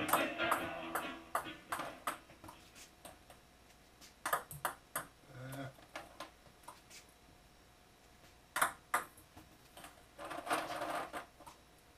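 Table-tennis balls clicking sharply off a bat and bouncing on the table during serve practice, in short scattered groups with pauses of a few seconds between them.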